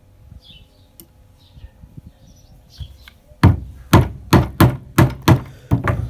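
A small log with an Opinel knife blade set in its end is knocked hard against a wooden deck, about eight sharp wooden thunks in quick succession in the second half, driving the blade in to split the wood. Before that there is only faint handling.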